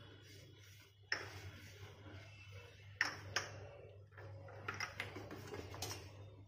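A steel spoon stirring milk kheer in a stainless-steel saucepan and clinking against the pan's side, with a few sharp ringing pings about a second in, twice around three seconds, and a quick run of them near the end, over a steady low hum.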